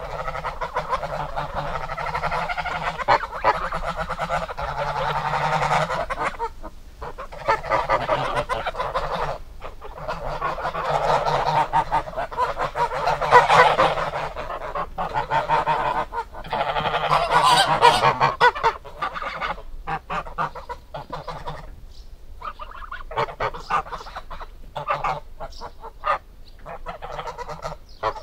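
Geese honking, with many calls overlapping in a dense chorus. In the later part it breaks up into shorter, separate honks.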